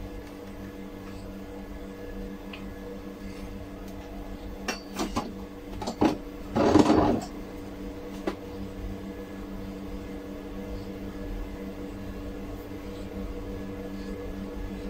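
A metal floating-shelf bracket and a spirit level being handled against a concrete wall: a few light knocks and clinks, then a louder clatter or scrape of under a second about seven seconds in, and one more click. A steady low hum runs underneath.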